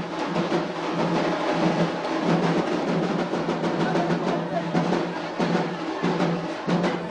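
Procession drums beating a fast, steady rhythm over a held low tone that breaks off and resumes every second or so, with crowd voices underneath.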